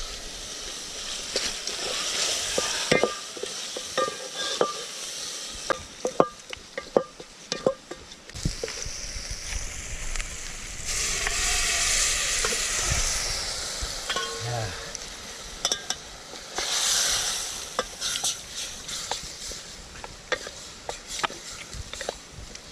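Food frying and sizzling in a pot while it is stirred, with many sharp knocks of a utensil against the pot. The sizzle swells loudest about halfway through.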